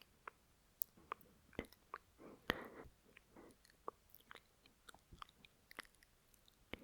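Lip noise: scattered small wet clicks and smacks of the lips and tongue, close to the microphone, with a soft breath about two and a half seconds in.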